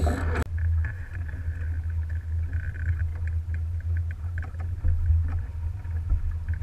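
Wind buffeting the bow-mounted camera's microphone in a steady low rumble, with water hissing and splashing along the Alberg 30 sailboat's hull. A louder clattering noise stops abruptly about half a second in.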